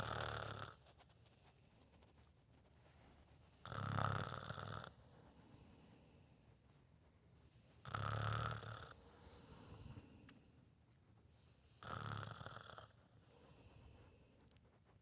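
Snoring: four snores about four seconds apart, each lasting about a second, with fainter breaths between them.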